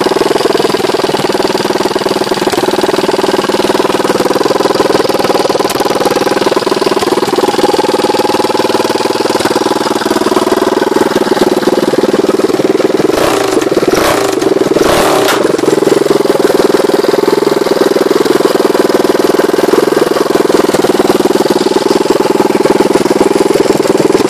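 1990 KTM LC4 600 single-cylinder four-stroke motorcycle engine running at a steady idle with its silencer removed, on its first run after at least two years unused. A few short thumps come about halfway through.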